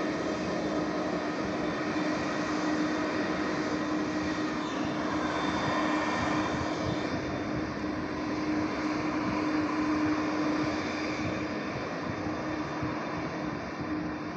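Airbus A330-202 airliner's twin jet engines at high take-off thrust: a continuous rushing noise with a steady low hum under it, easing slightly toward the end.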